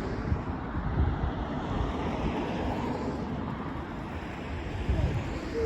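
Diesel engines of a KiHa 85 railcar train running with a steady low rumble, mixed with wind buffeting the microphone.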